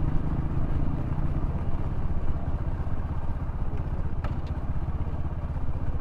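Small motorcycle engine running steadily while the bike rides along, its low pulsing even throughout, with a sharp click about four seconds in.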